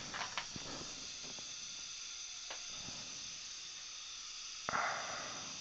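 Steady hiss of dental operatory equipment with faint high steady tones. A few small instrument clicks come near the start, and a short puff of air about three-quarters of the way through.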